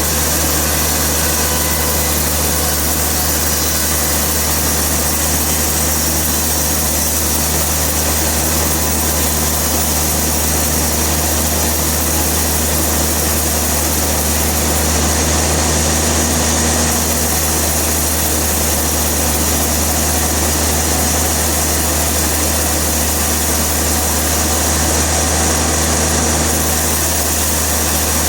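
Sawmill machinery running with a steady, unbroken low hum and noise, with no distinct cutting strokes or changes in pitch.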